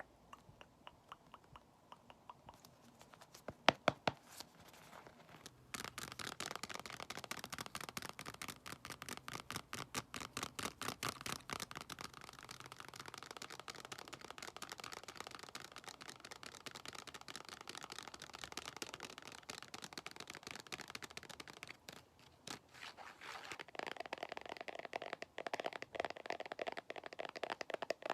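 Close-miked ASMR trigger sounds: a few light taps, then two sharper clicks, and from about six seconds in a dense run of fast scratching strokes, many to the second.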